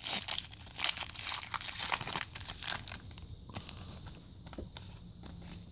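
Foil wrapper of a trading-card pack being torn open and crinkled by hand. The crinkling is loudest for the first three seconds, then drops to a few faint rustles.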